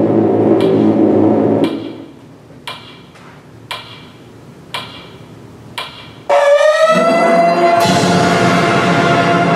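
Concert band playing contemporary wind-band music. A held chord breaks off, leaving sharp percussive ticks about once a second. About two-thirds of the way through comes a sudden loud full-band entrance whose pitch slides upward, and low instruments join a moment later.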